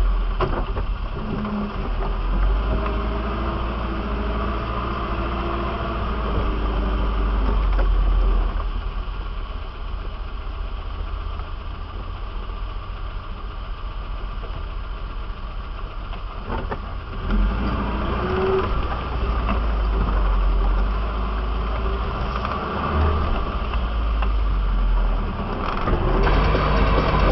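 A 4x4's engine works at low speed over a rough off-road trail, the revs rising and falling, quieter through the middle stretch. A few sharp knocks come at the start and about two-thirds of the way through.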